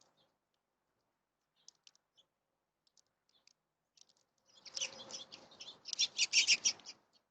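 A bird splashing in a bird bath: a rapid flurry of splashes and wing-fluttering that starts about halfway through and is loudest near the end, after a few faint chirps and ticks.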